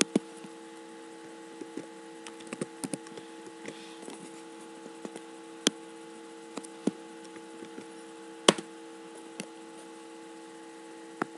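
Computer keyboard keys and mouse buttons clicking at irregular intervals as a spreadsheet formula is typed and cells are selected, with two louder clicks past the middle. A steady electrical hum lies under it.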